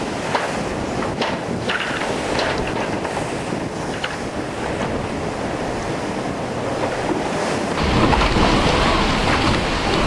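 Wind buffeting the microphone and sea rushing past the hull of an IMOCA 60 racing yacht under way under sail. The rush of water grows louder and heavier about eight seconds in.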